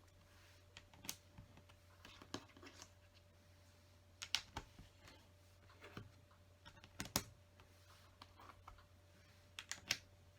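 Plastic LEGO pieces clicking as they are handled and pressed into place. A handful of sharp, irregular clicks come over a faint low hum.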